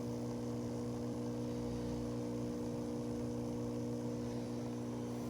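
Steady electrical hum with a few fixed low tones, unchanging throughout.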